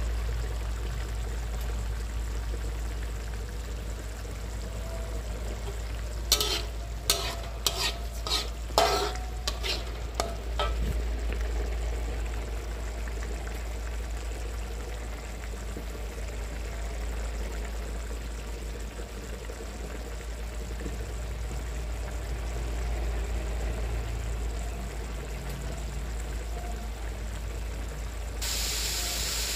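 Chili sambal paste sizzling and bubbling in a wok over a steady low rumble, with a short run of sharp metal spatula clicks and scrapes against the wok about six to eleven seconds in. A louder sizzling hiss starts suddenly just before the end.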